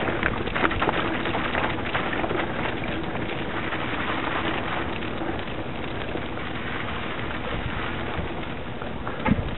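Mountain bike tyres crackling over a loose, stony track, with the bike rattling and wind buffeting the microphone. A sharp thump comes near the end.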